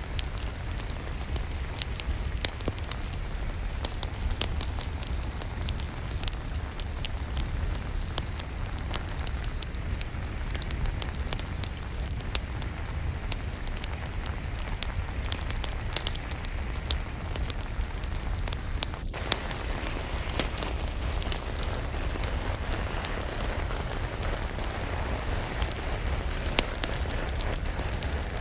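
Steady rainfall mixed with a wood fire crackling, with frequent sharp pops and snaps over an even hiss and a low rumble.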